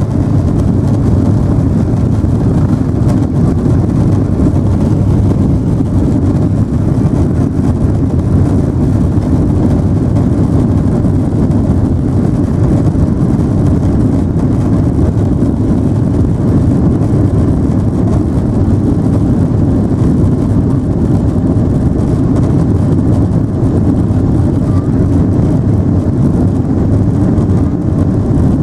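Steady low rumble inside the cabin of a Boeing 777-300 taxiing: engine hum and airframe noise heard from a window seat.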